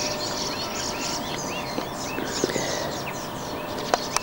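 Small birds singing, a run of short, repeated arched chirps over steady outdoor hiss, with a couple of sharp clicks near the end.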